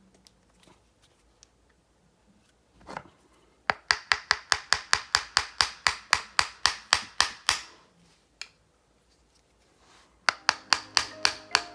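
Rapid, even tapping, about six sharp strikes a second in a run of about four seconds and a shorter run near the end: a tool knocking the metal sleeve home in a polyurethane rear lower control arm bushing.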